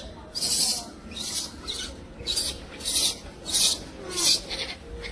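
Baby macaque screaming in a string of about seven short, harsh, high-pitched shrieks while its mother pins it down: distress screams.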